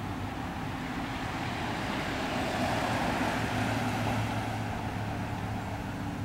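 Steady low hum under a rushing background noise that swells and fades about halfway through.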